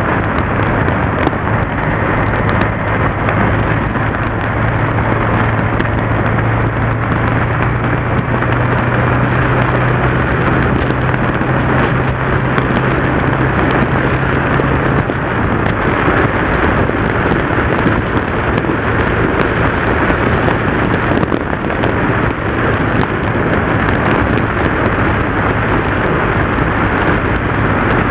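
Heavy wind noise on an action camera's microphone while a Yamaha TDM parallel-twin motorcycle is ridden at steady speed, its engine a steady low hum under the wind. The hum weakens about halfway through.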